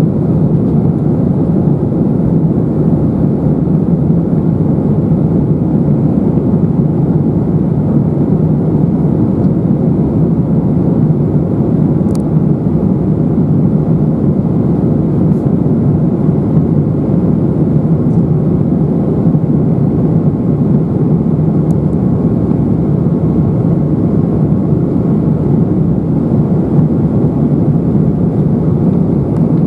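Airbus A319-111 cabin noise: the steady, deep drone of its CFM56 turbofan engines and the airflow around the fuselage, heard from inside the economy cabin.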